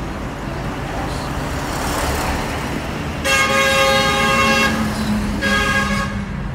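Vehicle horn sounding twice over road noise heard from inside a moving car: a long blast of about a second and a half, then a shorter one.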